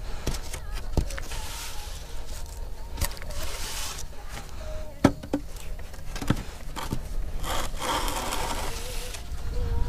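Sand being scraped level with a long aluminium spirit level taped to a wooden board, dragged across the sand bed in two long swishing strokes. A few sharp knocks fall between the strokes.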